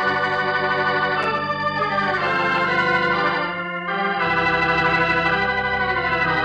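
Organ music cue of a radio drama: sustained, shifting chords that start suddenly, with a brief break about four seconds in.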